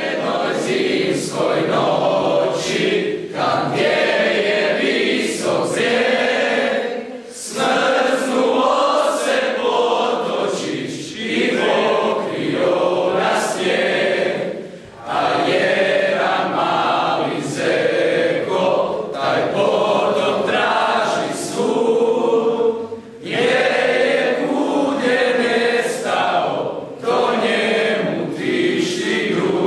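A group of teenage boys and young men singing together in chorus, in phrases of a few seconds broken by short pauses.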